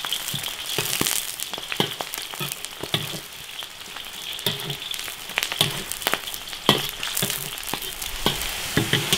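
Onion and scallions sizzling in hot oil in an iron wok, with a steady hiss broken by frequent sharp clicks and scrapes of the spatula as they are stirred.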